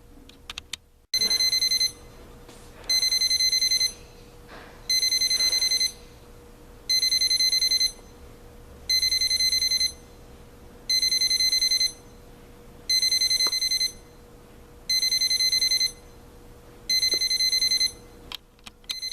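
AcuRite 13003A2 digital alarm clock's alarm going off: groups of rapid high-pitched electronic beeps, each about a second long, repeating every two seconds.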